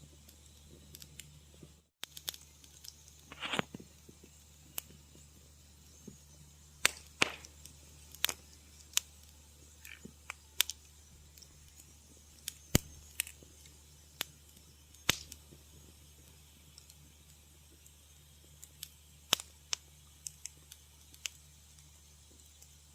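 Wood fire crackling in a fireplace: irregular sharp pops and snaps over a faint low hiss, with a brief gap of silence about two seconds in.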